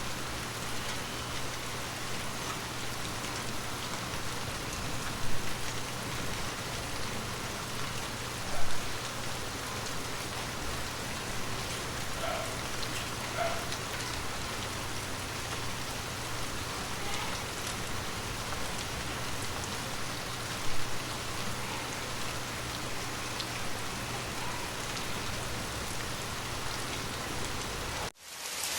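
Steady rain falling on a surface, with three short, louder taps of drops. Near the end it drops out abruptly for a moment and comes back louder and hissier.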